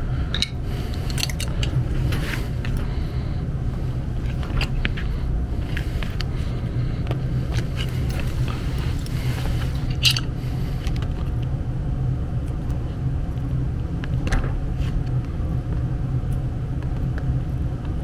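Steady low hum of a gas furnace running, with a few light clicks of a wrench on a brass gas-line flare fitting in the first few seconds. About ten seconds in, a short spritz from a spray bottle of soap solution being used to check the fitting for a gas leak.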